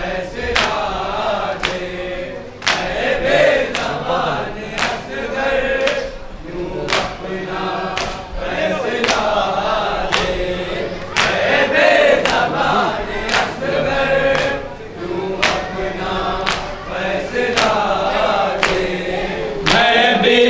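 A group of men chanting a Shia noha in chorus, with a steady beat of open-handed chest-beating (matam) strikes, about three every two seconds, keeping time under the voices.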